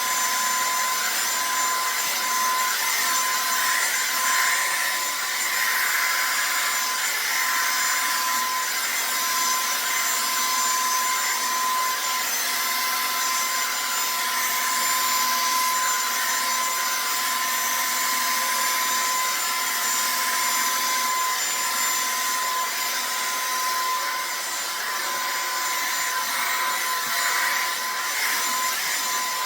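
Revlon One-Step hair dryer brush running steadily: a constant blowing hiss with a steady whine from its motor.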